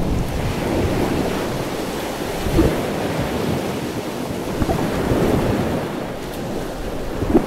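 Shallow surf washing over rocks, picked up by a camera held underwater near the surface: a steady, rumbling churn of water with a few brief sharp splashes.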